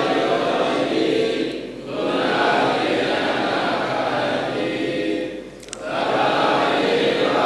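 Buddhist chanting by a group of voices in unison, in long sustained phrases with two short pauses for breath.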